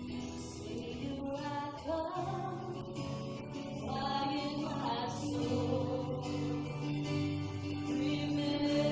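Worship music: a guitar-led band with sung vocals, in a slow, sustained gospel style.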